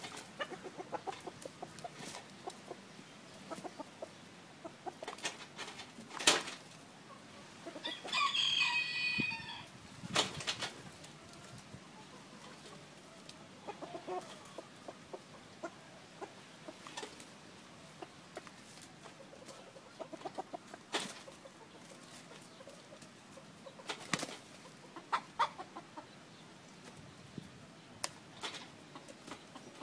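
Two fighting roosters, a Đông Tảo and a native Vietnamese gamecock: scattered wing flaps and sharp knocks as they strike at each other, a few of them loud. One rooster crows once, about eight seconds in.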